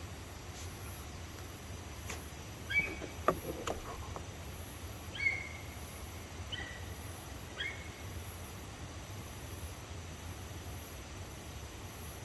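Insects chirping steadily in the dark, with a low hum under them. A few short, high calls from an unseen animal break in, four or five times between about a third and two thirds of the way through, mixed with a couple of sharp clicks.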